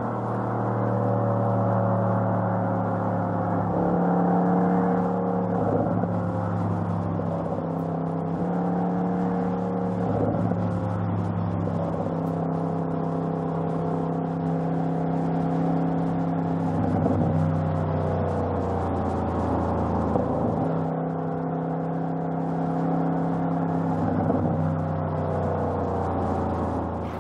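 Audi RS6 Avant's 4.0-litre twin-turbo V8 running under way at fairly steady revs. Its pitch holds for a few seconds at a time, then steps up or down.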